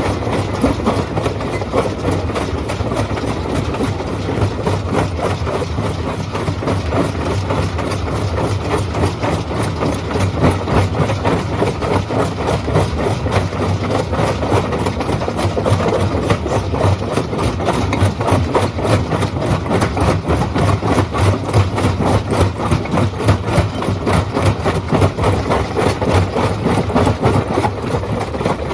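Stone crushing machine running under load: a steady low machine drone with dense, rapid knocking and clatter, the sound of rock being broken.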